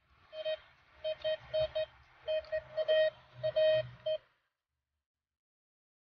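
Metal detector beeping as its search coil passes over a buried metal target: about ten short, same-pitched beeps in an uneven run over roughly four seconds, then it stops.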